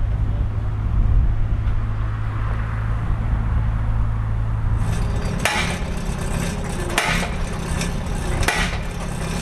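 A mini excavator's engine running steadily. About five seconds in, a pile-driving hammer begins striking a steel sheet pile, three sharp blows about a second and a half apart.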